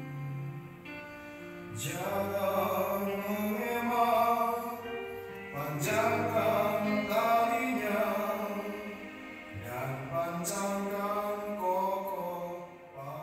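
A group singing a slow worship song together over a music backing, in long phrases that swell and fade about every four seconds.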